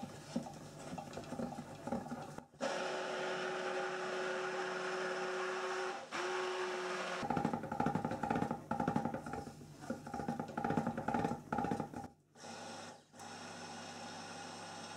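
Stick blender running in a stainless steel pot of cold-process soap batter, churning the oils and lye-milk solution toward trace. It runs in spells with a steady motor hum, stopping and starting abruptly several times.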